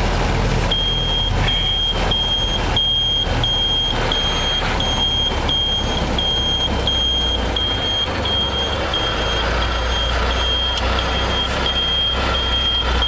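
Inside a moving car: steady engine and road noise, with a high electronic tone broken by a click about every two-thirds of a second in the rhythm of a turn-signal flasher, as the car signals to pull over to the right.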